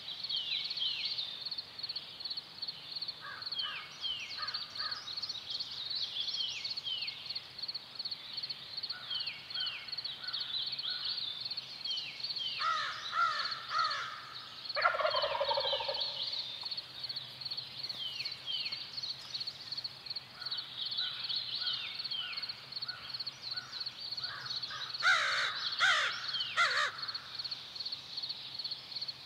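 Wild turkey gobbler gobbling: a rattling call about halfway through, then the loudest gobble just after it, and a cluster of three gobbles near the end. Behind them runs steady birdsong of short falling chirps over a constant high trill.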